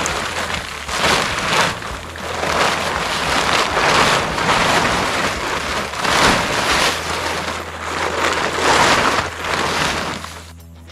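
A plastic tarp crinkling and rustling as it is dragged off a shelter frame and gathered up, in repeated swells of noise about every second or two that fade out near the end.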